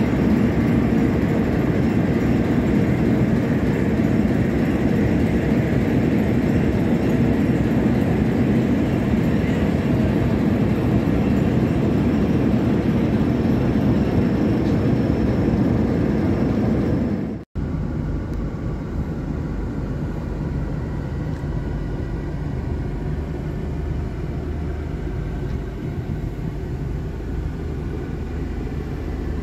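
Loud, steady vehicle engine noise by the river, then a sudden cut about two-thirds of the way in to a steadier, lower engine hum heard from inside a car's cabin aboard a river car ferry.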